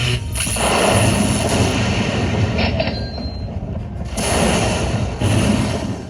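Slot machine sound effects: loud booming, rumbling bursts that start sharply about half a second in and again around four and five seconds in.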